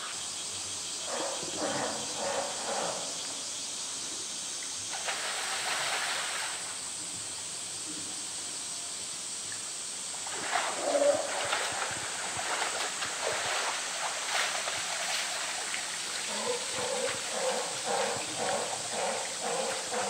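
A polar bear splashing and sloshing in shallow water as it hauls itself out of its pool onto concrete steps, loudest about halfway through, over a steady hiss of water. People's voices come and go in the background.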